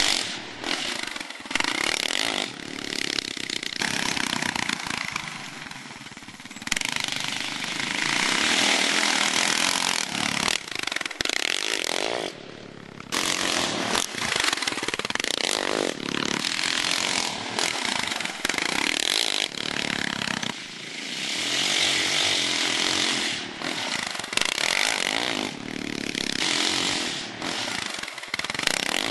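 Yamaha Raptor 660 quad's single-cylinder four-stroke engine revving hard as it is ridden over a motocross track, the engine note rising and falling with several abrupt drops.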